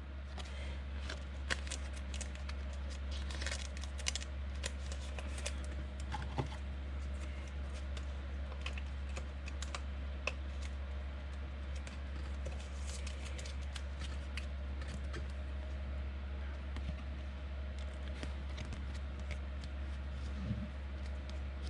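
Soft, irregular clicks and taps of hands working at a table over a steady low hum.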